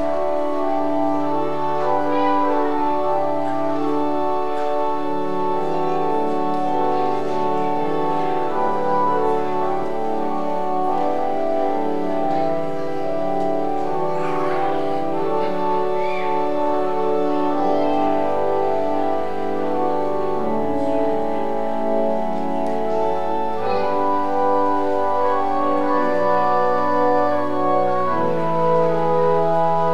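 Church organ playing slow, sustained chords, the notes held steady and changing from chord to chord.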